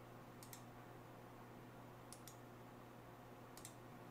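Faint computer mouse clicks, three quick pairs spaced over a few seconds, over near-silent room tone with a low steady hum.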